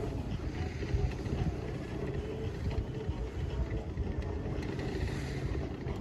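Low, uneven rumble of wind buffeting the microphone, with faint distant voices from the ski slope.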